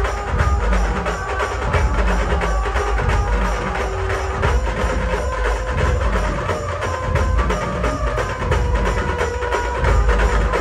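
Loud procession music on an amplified sound system: heavy bass under fast, sharp percussion strokes and a held melody line.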